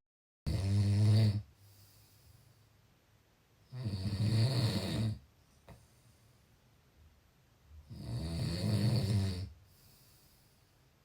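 A sleeper snoring in a slow steady rhythm: three rough, deep snores about four seconds apart, each lasting a second or so, with quiet breathing between. The sound cuts out for a moment at the very start.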